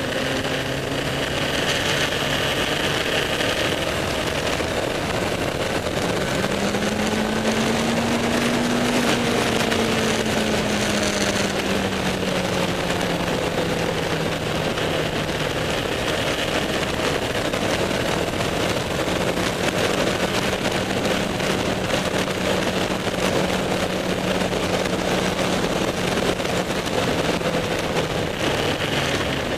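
Motorcycle engine running while riding at road speed, under a steady rush of wind and road noise. About seven seconds in the engine pitch climbs, then eases back down over the next few seconds and holds fairly steady.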